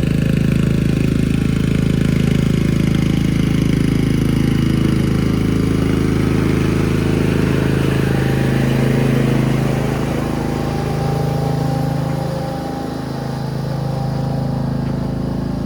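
Riding lawn mower's Briggs and Stratton engine running steadily, easing off slightly about two-thirds of the way through.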